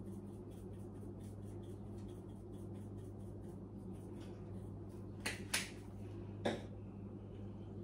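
Faint quick ticks of a shaker of grated Parmesan being shaken over the salmon, then three sharp clicks a little past the middle as seasoning containers are handled, over a steady low hum.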